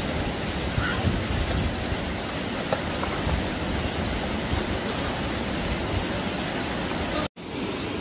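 Steady rush of a waterfall pouring into a rock pool, which breaks off suddenly for a moment near the end.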